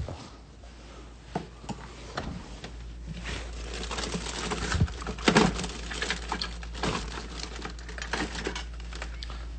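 Keurig single-cup coffee maker brewing: a steady low hum with irregular sputtering ticks and crackles.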